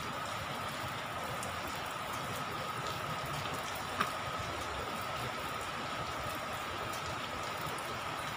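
Steady rain falling on a rooftop, an even hiss of drops. A faint steady high tone runs underneath, and there is one sharp tick about four seconds in.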